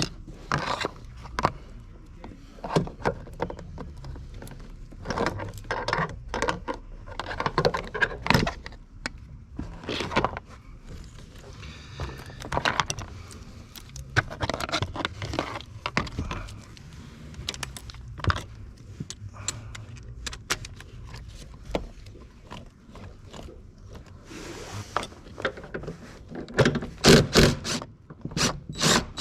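Hand tools and small metal car parts clinking, knocking and scraping as a seat belt retractor unit is worked on, with a quick run of louder knocks near the end.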